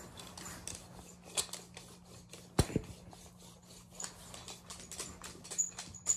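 Irregular small clicks, rubs and rustles of handling close to the microphone, with one sharp knock about two and a half seconds in, over a faint steady low hum.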